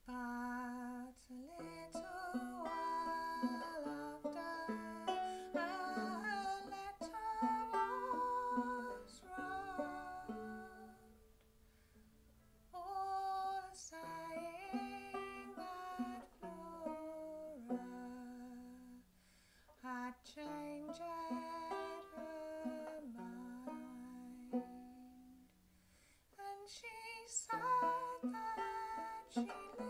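Open-back banjo being picked with a woman singing over it. The music starts suddenly at the beginning and breaks briefly between phrases three times.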